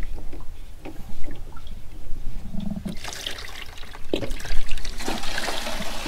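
Water from a plastic water jug's spigot splashing into a plastic camp sink and running down the drain. A few small clicks and knocks come first. The splashing starts about three seconds in and gets louder near the end.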